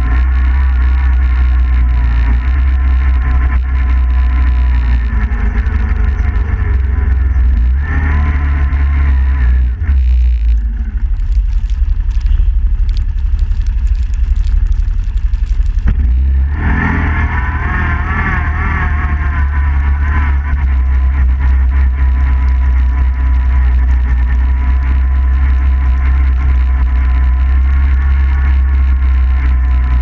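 Suzuki King Quad 750 ATV's single-cylinder engine running under way, over a heavy low rumble. About ten seconds in the engine note drops away for several seconds amid scattered sharp clicks, then comes back near seventeen seconds, wavering in pitch as it picks up again.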